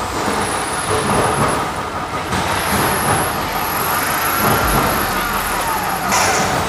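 Electric drill running with a small hole-saw bit, boring a hole through thin-walled steel box section; a steady mechanical run whose pitch rises and falls partway through as the cutter bites.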